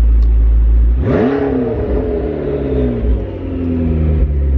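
Modified McLaren twin-turbo V8 idling with a steady low rumble, at the raised idle it holds with the door open. About a second in the engine revs up sharply, and its pitch then falls slowly away over about three seconds before the steady idle returns.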